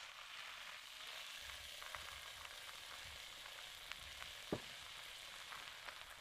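A pan of sautéed beet, onion and carrot with tomato paste sizzling steadily, with small crackles throughout. A single sharp knock comes about four and a half seconds in.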